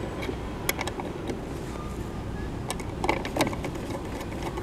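Scattered small clicks and taps as a screw is driven with a screwdriver to fasten a bird box camera onto a metal L-shaped bracket, with a short run of clicks about three seconds in, over a steady low background rumble.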